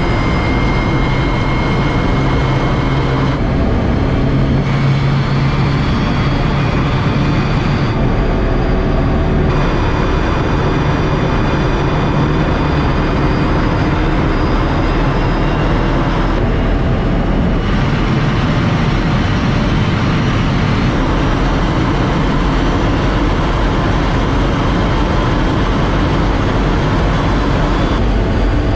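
Electric hypercar driving at high speed: a steady, loud rush of wind and tyre noise with thin, high electric-motor whine tones over it, changing briefly a few times.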